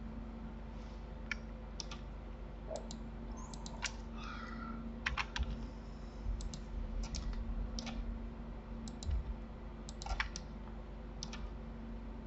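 Computer keyboard keys clicking in scattered groups of two or three, over a steady low hum.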